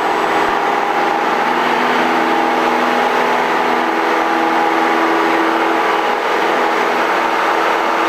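Single-engine light airplane's piston engine running steadily at takeoff power during the takeoff roll, heard from inside the cockpit as an even drone with a few steady tones.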